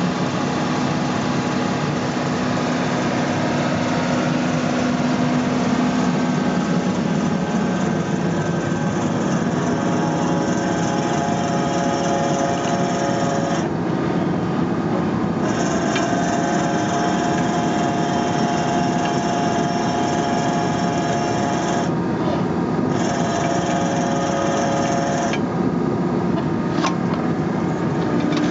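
New Holland E80B midi excavator running steadily while driving an Augertorque hydraulic earth drill that screws in ground anchors. A steady whine over the engine cuts out and comes back a few times.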